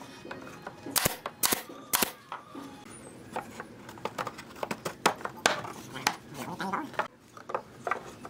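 Pneumatic nail gun firing three shots about half a second apart, about a second in, driving nails into pine boards. Then lighter knocks and clatters of wooden boards being set in place by hand.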